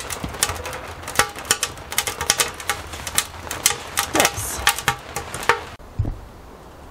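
Rapid, irregular clinking and clicking of metal on metal, some strikes ringing briefly, that stops abruptly near the end, leaving faint wind noise.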